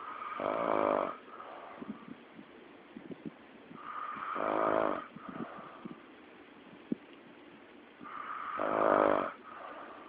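A man snoring loudly in his sleep: three snores about four seconds apart, each building up and then breaking off, with small clicks between them.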